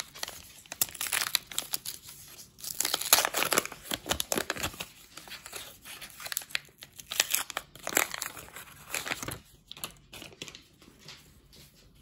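A paper trading-card pack wrapper being torn and peeled open by hand, crinkling and rustling in irregular bursts, loudest about three seconds in.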